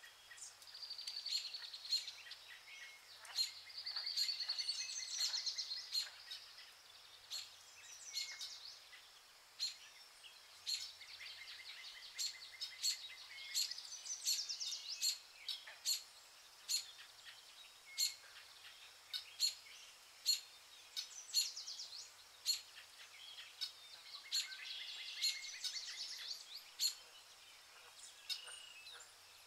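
Birds chirping and trilling in repeated high phrases, with sharp clicks about once a second.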